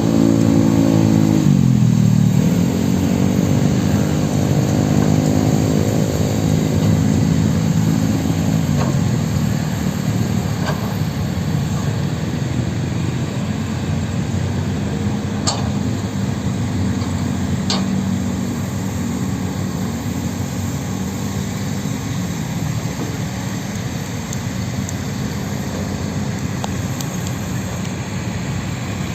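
Heavy diesel earthmoving machinery running. The engine note dips about a second in, climbs back and holds, then settles into a duller rumble that slowly fades. Two sharp clicks come in the middle.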